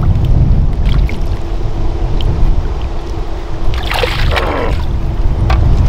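Strong wind buffeting the microphone, a heavy low rumble throughout, with a faint steady hum underneath. About four seconds in, a brief splash as a crappie is pulled up and grabbed at the boat's side.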